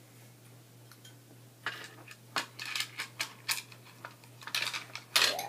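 Tiny plastic toy cups and dishes clicking and clattering against each other as they are handled, a string of light knocks starting about a second and a half in.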